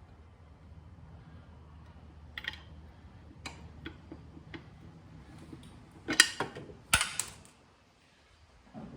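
Small metal parts of a motorcycle air cleaner cover and its screw being handled: scattered light clicks, then two louder clatters about six and seven seconds in.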